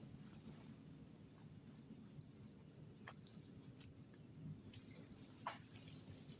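Crickets and other night insects trilling faintly and steadily, with louder paired chirps a couple of times. A few sharp clicks or knocks break in, the loudest about five and a half seconds in.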